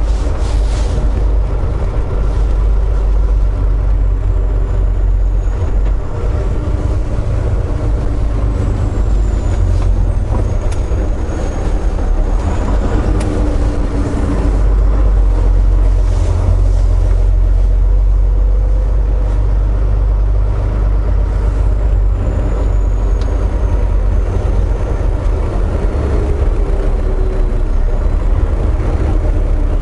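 Volvo VNL860 semi truck heard from inside the cab, its diesel engine and drivetrain giving a steady, loud low rumble as the truck rolls along.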